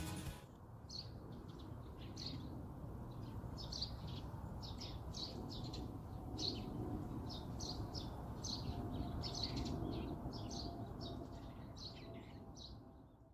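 Small birds chirping: short high calls repeated every half second to a second over a steady low background noise, fading out near the end.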